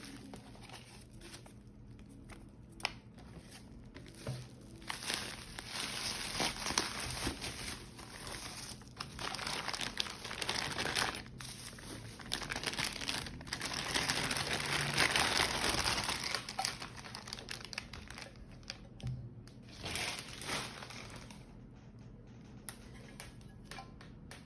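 Packaging being unwrapped by hand: irregular crinkling and rustling with some tearing, loudest about two-thirds of the way through and quietening near the end.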